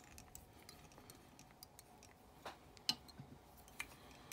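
Quiet fly-tying handling: faint scattered ticks and clicks as black thread is wound with a bobbin holder down the hook shank held in a vise, with a few sharper clicks in the second half.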